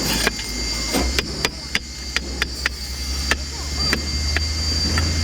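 A run of about a dozen sharp knocks, irregularly spaced and thickest in the first half, over a steady low machine drone with a thin high whine.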